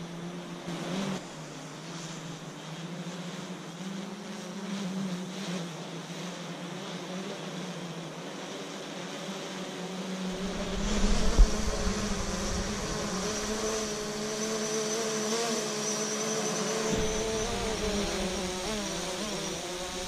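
Quadcopter drone's propellers buzzing as it hovers and descends in gusty wind, the pitch wavering as it fights the gusts. About ten seconds in the buzz grows louder, joined by a low rumble and one brief thump, the loudest moment.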